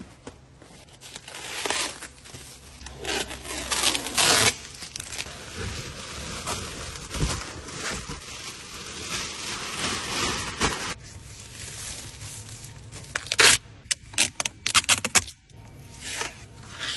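Protective plastic wrapping and packing being handled and pulled off a new car's interior: irregular rustling and scraping, with a quick run of sharp crackles in the last few seconds.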